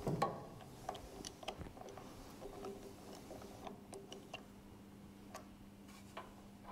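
Faint, irregular clicking of a ratchet wrench with a 14 mm socket undoing the inner driveshaft's flange bolts. A low steady hum sets in partway through.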